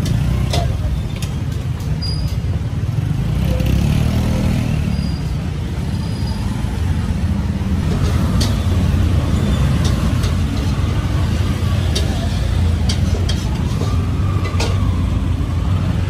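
Busy street ambience: a steady rumble of road traffic with a motor vehicle passing a few seconds in, under background voices and a few sharp clicks.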